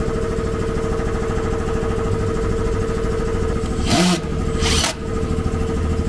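Steady drone of running machinery, with two short bursts of noise about four and five seconds in.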